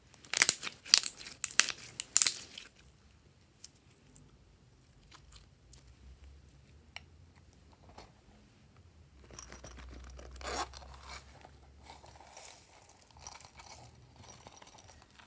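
Hands squeezing glossy slime in a glass tray, making a quick run of sticky crackles and pops for about two seconds. Quieter rustling and light crackling follow, with sequins being shaken out of a small plastic container near the end.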